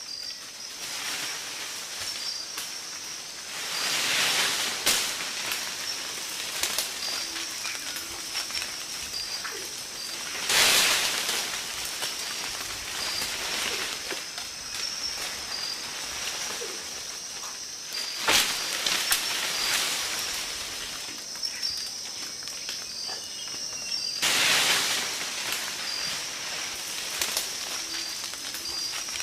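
Rainforest canopy: a steady, high insect chorus with evenly repeating chirps, broken four times by a loud rush of leaves and branches shaking as leaf monkeys leap and land in the trees.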